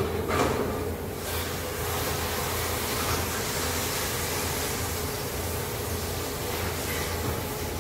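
TIG (argon) welding arc on stainless steel: a steady buzzing hiss over a constant low hum, starting about a second and a half in after a light metal knock near the start.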